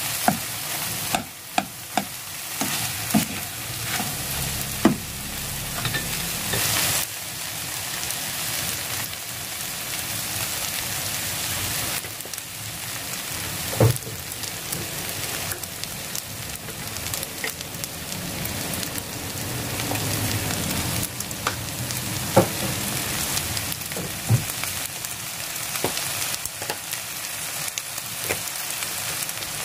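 Cabbage, onion and ham stir-fry sizzling steadily in a frying pan. A spatula clicks and scrapes against the pan as it turns the vegetables, several times in the first five seconds and now and then later.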